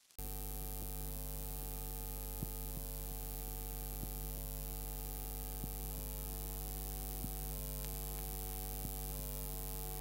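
Steady electrical mains-type hum: a low buzz with many overtones over a faint hiss, with faint ticks about every second and a half.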